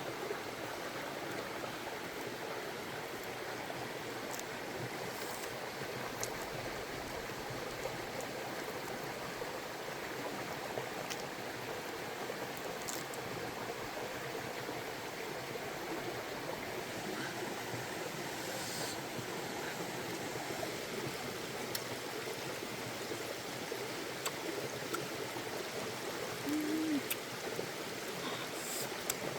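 Steady flowing water, with a few faint clicks and one brief pitched blip near the end.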